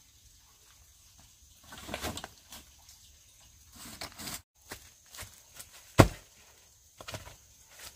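Rustling and scattered knocks, with one sharp knock about six seconds in that is the loudest sound; the sound cuts out for a moment near the middle.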